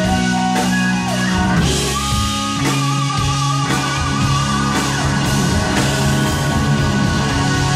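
Blues-rock band playing: electric guitar over bass and drums. About two seconds in, a long held note wavers with wide vibrato.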